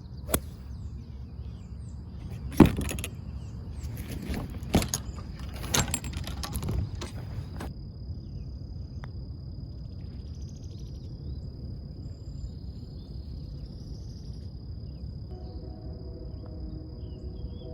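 A handful of sharp knocks and clacks from golf play or equipment, five or so spread over the first eight seconds, the loudest about two and a half seconds in. They sit over steady outdoor background noise with a constant faint high whine and a few bird chirps, and soft music comes in near the end.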